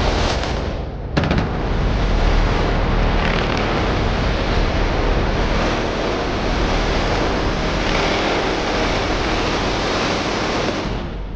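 A large football crowd roaring, heard as a dense, steady rush of noise that cuts in suddenly about a second in.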